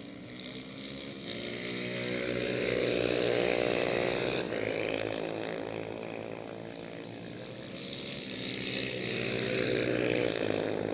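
Engines of 1950s–60s racing motorcycles, Nortons and the like, at speed on the circuit. The note swells louder, drops sharply in pitch about four and a half seconds in, eases off, then swells again near the end.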